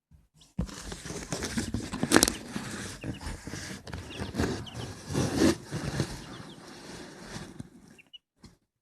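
Rustling and scuffling noise with a sharp knock about two seconds in, and faint high peeps from newly hatched chicks.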